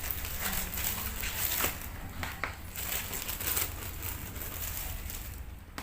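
Packaging crinkling and rustling in irregular crackles as tool-set items are handled and unpacked.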